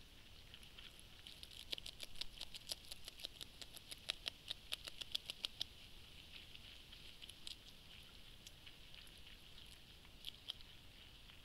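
A Eurasian beaver gnawing: a faint run of rapid, crisp clicks, about six a second, lasting a few seconds, then a few scattered clicks. A steady high hiss runs underneath.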